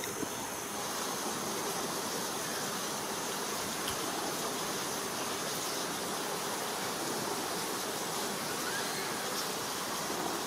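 Steady, even background hiss with a couple of faint clicks near the start and no distinct animal calls.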